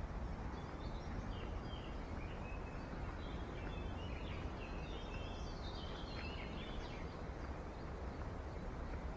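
Birds chirping, a series of short high calls for several seconds in the middle, over a steady outdoor background hiss.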